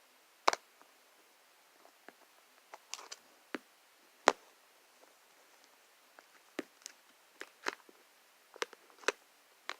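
Scattered sharp clicks and small pops, about a dozen at irregular intervals, from a slime and its plastic container being handled.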